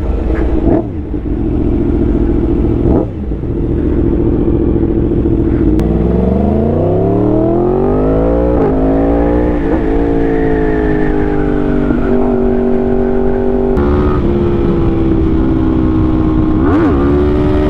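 Motorcycle engine pulling away: it runs steady at first, then revs rise in two climbs, each cut by an upshift about eight and a half and ten seconds in, before it settles to a steady cruise with another gear change near the end.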